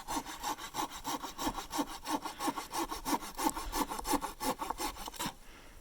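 Hand saw cutting through a thick log for firewood, quick even back-and-forth strokes about four a second, stopping a little after five seconds in.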